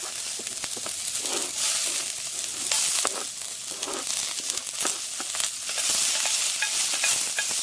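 Chopped onions sizzling in hot olive oil in a cast iron pot, with the light knocks and scrapes of a wooden spoon pushing them off a cutting board and stirring them.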